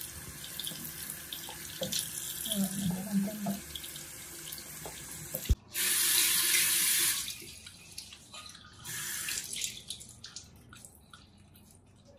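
Bathroom sink tap running, water splashing over hands in the basin. About halfway through there is a sharp knock and then a louder rush of water for about a second and a half, after which the water dies away to a few faint clicks.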